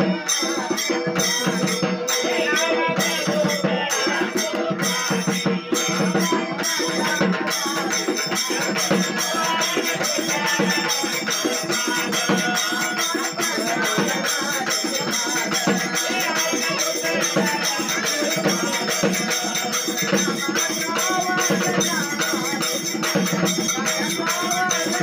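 Group of voices singing a Marathi folk devotional song, accompanied by a two-headed hand drum and a quick, steady jingling metal percussion that keeps the beat.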